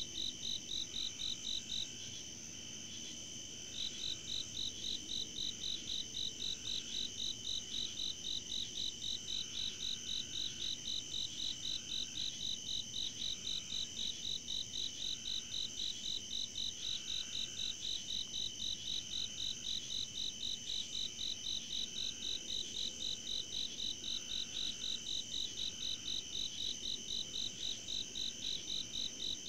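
Night insect chorus: a loud pulsing call at about three pulses a second, pausing briefly about two seconds in, over a steady high-pitched trill.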